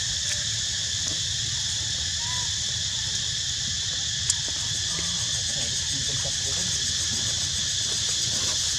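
A steady, high-pitched chorus of insects buzzing without a break, over a low rumble. A single sharp click comes about four seconds in.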